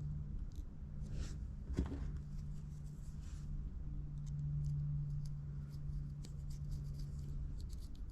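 Small hand screwdriver driving tiny screws into the plastic gearbox cover of a micro RC crawler, with faint scratching, rubbing and light ticks of hands and tool handling small parts, over a steady low hum.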